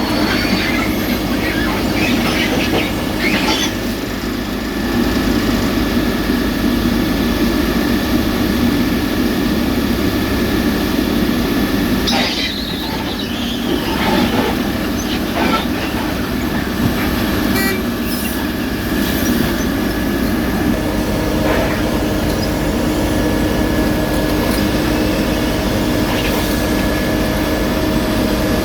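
Heavy road-paving machinery running: a steady diesel engine drone with a held whine, and scattered metallic clanks and squeaks from tracks and moving parts.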